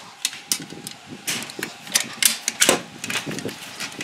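Ratchet tie-down strap being released by hand: an irregular run of sharp metallic clicks and clacks from the ratchet mechanism and its hooks, with a faint steady hum underneath.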